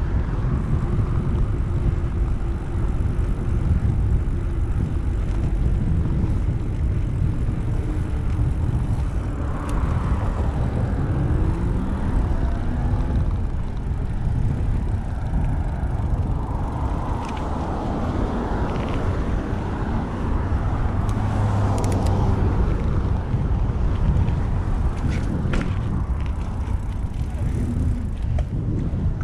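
Wind rushing over the microphone of a camera riding on a moving bicycle, a steady loud rumble, with road traffic; a motor vehicle goes by about a third of the way in.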